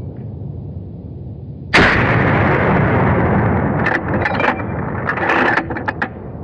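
A single loud gunshot about two seconds in, with a long rolling echo that dies away over the next two seconds; a shot at a moose. Several sharp clicks and knocks follow near the end.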